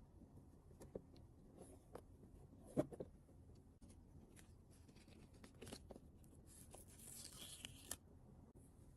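Soft taps and handling of toy packaging during an unboxing, with a brief crinkling tear of packaging about seven seconds in.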